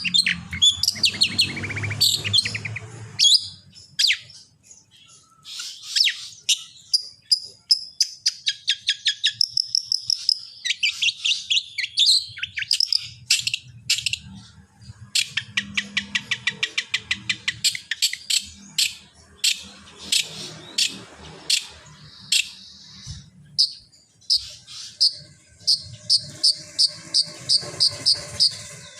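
Long-tailed shrike (cendet) singing a fast, varied song of chirps, trills and quick series of short repeated notes, with short pauses between phrases.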